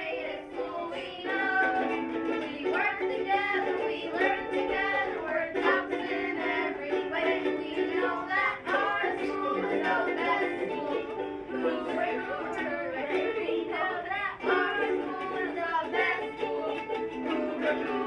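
A song with a singing voice over steadily strummed ukulele chords.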